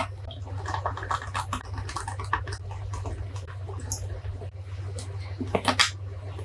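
Small screws being driven into a Canon 400D camera's metal back plate with a precision screwdriver, and fingers handling the camera's plastic and metal parts: light scattered clicks and scrapes, with a cluster of sharper clicks about five and a half seconds in, over a steady low hum.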